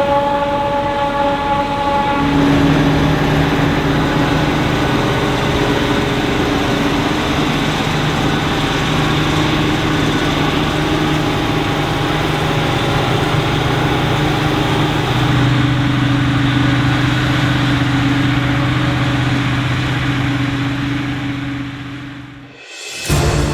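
Krone BiG X 680 self-propelled forage harvester running under load while chopping maize: a steady, dense machine hum with a whine, its pitch stepping a couple of times. Near the end it fades out and a short whoosh follows.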